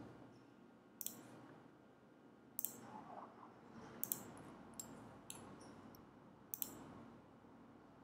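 Computer mouse clicking: about six faint, sharp clicks at irregular intervals as points are placed one by one with a CAD spline tool.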